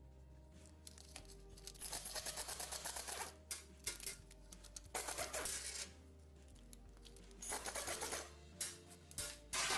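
Ratchet wrench clicking in several short bursts of rapid clicks as engine bolts are turned, the loudest burst near the end, over quiet background music.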